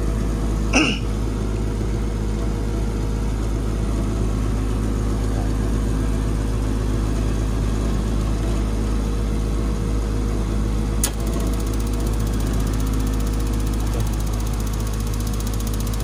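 Reznor gas-fired garage unit heater running through its restart after a reset, with a steady mechanical motor hum. A sharp click comes about a second in and another later on.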